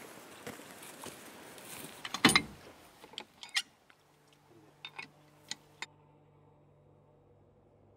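A few sharp clicks and knocks over faint background noise, the loudest a little over two seconds in, followed by several lighter clicks as the background drops away to a faint hum.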